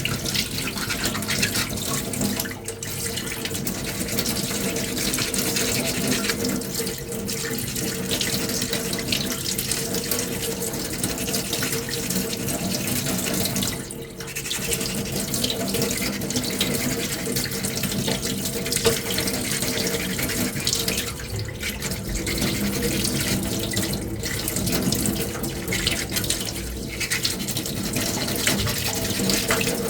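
Coarse-grit sandpaper rubbing steadily over a putty-coated cosplay finger-armour piece, a continuous rasping hiss that pauses briefly a few times. A steady low hum runs underneath.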